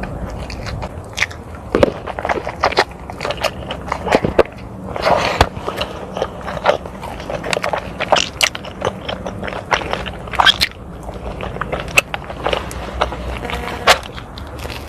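A person biting and chewing crunchy food close to the microphone, with many irregular crunches.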